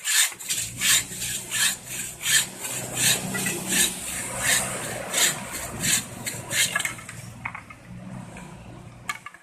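Bow saw cutting through green bamboo with quick back-and-forth strokes, about three a second, stopping about seven seconds in.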